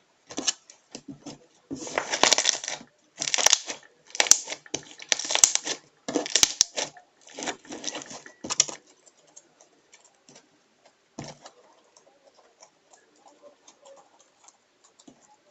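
Homemade slime being squeezed and squished by hand, a run of short crackling squelches for about nine seconds, then only faint clicks and light handling.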